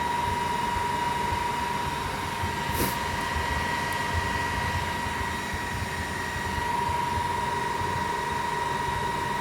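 Creality CR-20 Pro 3D printer idling: its fans give a steady hum, with a steady high-pitched tone over it and one faint click about three seconds in. No extruder motor sound comes through although a reverse move was commanded: the extruder stepper driver has failed.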